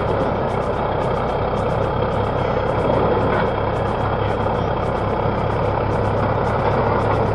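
Caterpillar D9G crawler dozer's turbocharged six-cylinder diesel running steadily as the machine moves slowly on its steel tracks. A faint high clicking repeats about three times a second over the engine.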